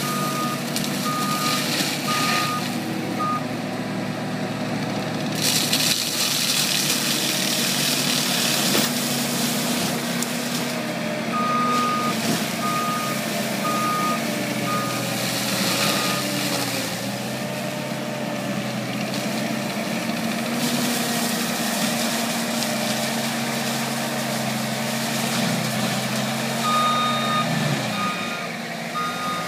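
Terex PT-110 compact track loader's diesel engine running under load while its Loftness forestry mulcher head shreds brush, with several stretches of loud hissing grind as the drum bites into the brush. The machine's back-up alarm beeps in a steady repeating pattern near the start, around the middle and near the end as it reverses, and the engine note sags briefly near the end.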